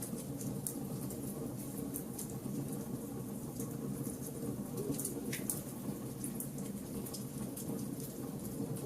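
Wood fire burning in a fireplace: a steady low rumble of flames with frequent small crackles and pops throughout.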